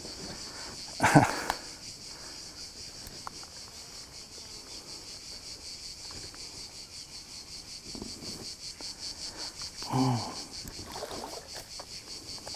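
Crickets chirping in a high, fast, even pulse, with a brief loud voice sound about a second in and a shorter one near the end.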